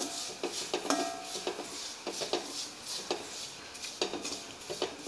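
Perforated steel spoon scraping and knocking against an aluminium kadai in repeated, uneven strokes, some with a brief metallic ring, as dry-roasted grated coconut and spice powders are stirred to cook off the spices' raw smell.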